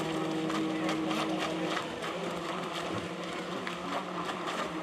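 Club 500 electric model racing boats running on the water: a steady whine from their small electric motors, strongest in the first couple of seconds, then easing a little as they move off.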